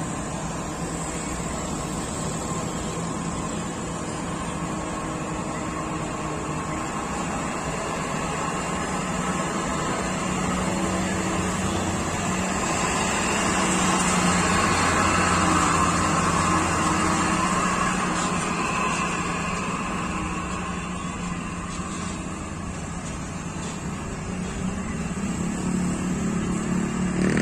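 Heavy cargo truck's diesel engine running steadily as it passes close, loudest about halfway through, with motorcycle engines going by.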